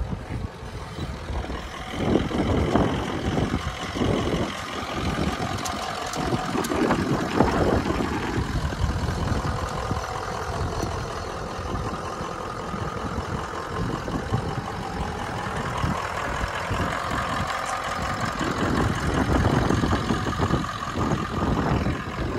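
Ford Super Duty pickup truck's engine idling steadily, with gusts of wind buffeting the microphone.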